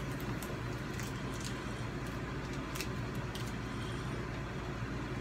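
Steady low background hum with a few faint clicks.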